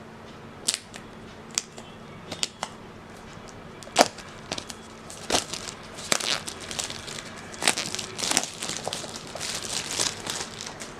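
Packaging of a smartphone box being opened by hand: a few sharp clicks and snaps, the loudest about four seconds in, then a denser stretch of crinkling and crackling.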